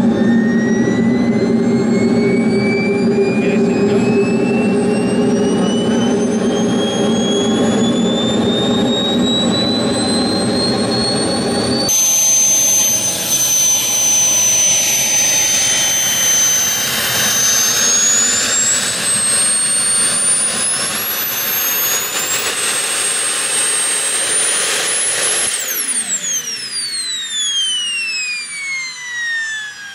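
Model jet turbine of a large RC jet running on the ground. First comes a rumble under a whine that rises steadily for about twelve seconds. Then the rumble drops away and a high whine holds, climbs in two steps, and about 25 seconds in cuts off, its pitch falling away as the turbine spools down.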